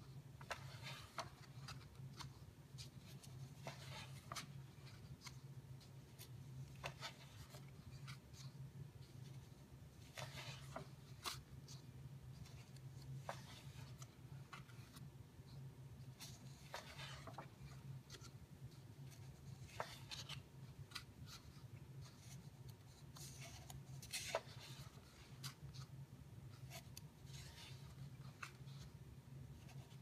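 Pages of a large hardcover photo book being turned by hand: short papery rustles and slides every few seconds, over a steady low hum.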